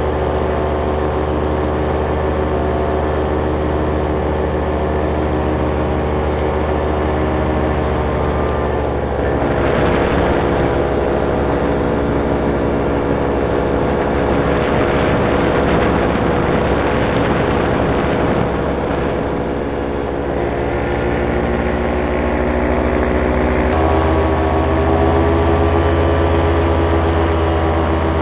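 Paramotor engine and propeller running steadily in flight, a constant drone with wind rushing over the microphone. The wind rush grows for a stretch in the middle, and the engine's tone shifts suddenly about four seconds before the end, as with a throttle change.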